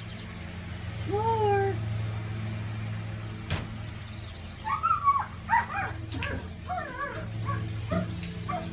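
A pet animal's calls: one drawn-out whine about a second in, then a run of short yelps and squeals through the second half, over a steady low hum.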